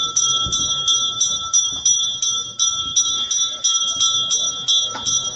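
Hindu puja bell rung steadily in an even rhythm, about three strokes a second, its high ringing tones carrying on between strokes.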